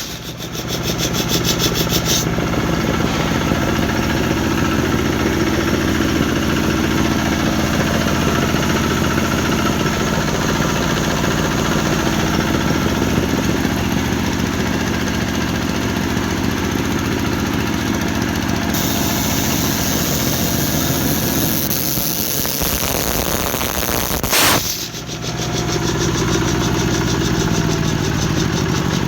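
A 10-horsepower diesel engine driving an air compressor with a 500-litre tank, running steadily at a constant speed. The sound breaks off briefly about 24 seconds in, then resumes at the same steady pitch.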